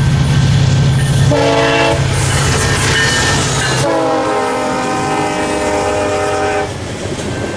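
Nathan K5LLA five-chime air horn on a diesel locomotive sounding a short chord blast about a second in, then a longer blast of about three seconds, over the heavy rumble and clickety-clack of the passing train.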